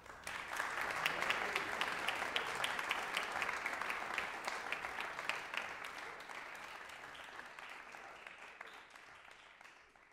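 Audience applauding as the last chord of a live big band performance dies away. The clapping is strongest in the first few seconds, then thins out and slowly fades.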